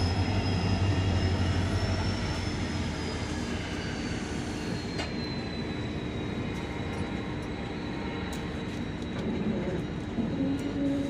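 Train rolling along the track, heard from on board: steady wheel-on-rail noise with a thin, high wheel squeal that slides down a little in pitch about five seconds in and then holds.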